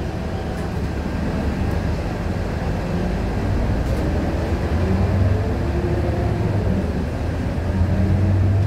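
Scania K230UB city bus's diesel engine running, heard from inside the bus: a steady low drone that swells around the middle and again near the end as the bus pulls.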